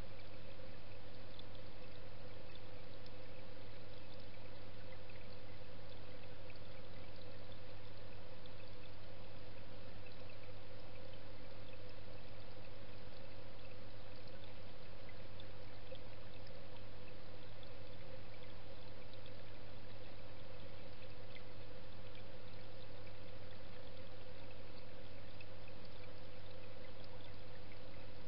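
Steady rush of flowing, trickling water with a constant low hum, heard underwater in a fish pond: the pond's pump and filter circulating water. Small bubble ticks are scattered through it.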